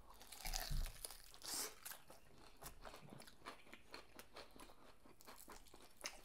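Crispy fried chicken breading being bitten and chewed: a few stronger crunches in the first two seconds, then a steady run of small crackling chews.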